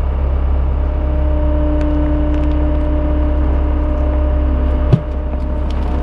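Road roller's engine running steadily. A single sharp thump sounds about five seconds in.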